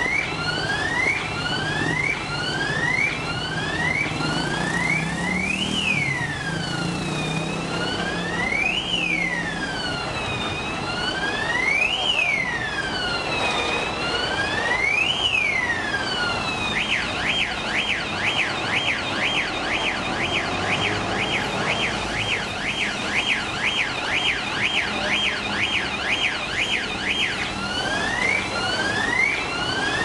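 A bank's electronic alarm siren sounding loudly and cycling through its tones: quick rising chirps, then slow rising-and-falling wails about three seconds apart, then a fast warble for about ten seconds, then the quick chirps again. The alarm is stuck on and had been sounding for about 90 hours.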